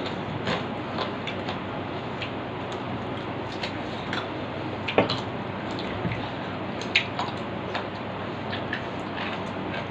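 Eating by hand from steel plates: chewing and mouth smacks with scattered small clicks of fingers and food on the plates, the sharpest about five and seven seconds in, over a steady background hiss.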